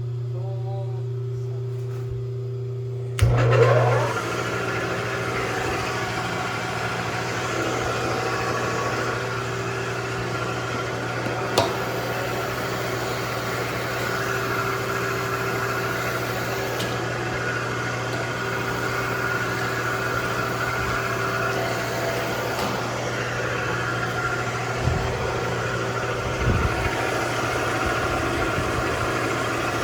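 Republic Lagun FTV-2 milling machine switched on about three seconds in, with a brief rising whine as the spindle spins up. It then runs steadily, with a sharp click near the middle and a few light knocks near the end.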